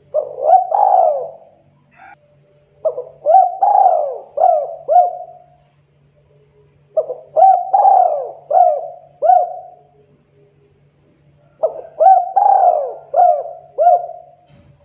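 Spotted dove cooing: about four phrases a few seconds apart, each a quick run of four or five short, arching coos.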